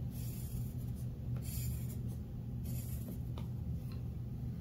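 Pencil scratching on paper in short strokes, over a steady low hum.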